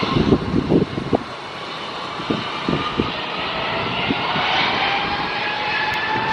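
Jet airliner engines whining steadily, the whine slowly rising in pitch, over uneven low buffeting that is strongest in the first second or so.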